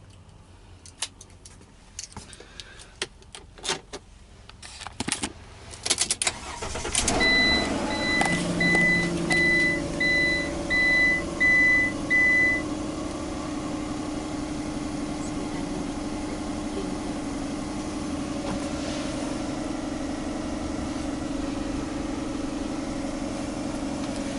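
A few clicks and knocks, then a Ram ProMaster van's engine starts about seven seconds in and settles into a steady idle. While it catches, a high warning chime beeps repeatedly for about five seconds.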